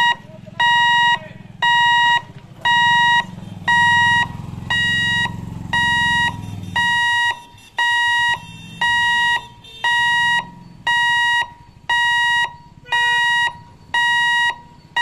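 Railway level-crossing warning hooter beeping about once a second: short, evenly spaced electronic tones warning road users that the gate is closing for an approaching train. A low rumble runs under the first half.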